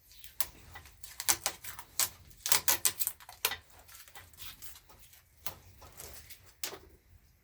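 Hands handling motorcycle ignition wiring and parts: a run of irregular sharp clicks and taps, busiest in the first three and a half seconds, with one more near the end.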